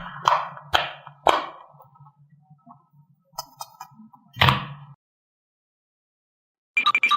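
A series of sharp percussive hits, about two a second over a low hum, fading away; one more hit about four and a half seconds in, then silence, and a bright chiming ding near the end.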